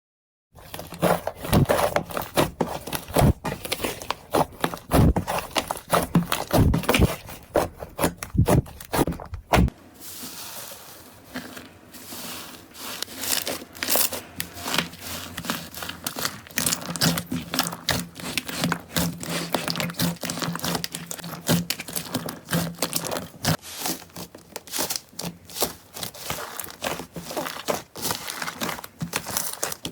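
Slime handled by hand, squeezed and pressed, giving dense crackling and popping clicks. About ten seconds in it changes to a finer, busier crackle.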